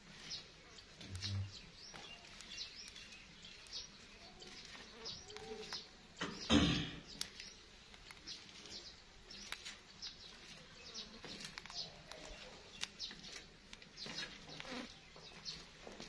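Plum-headed parakeet giving short, high chirps at irregular intervals, with one louder burst about six and a half seconds in.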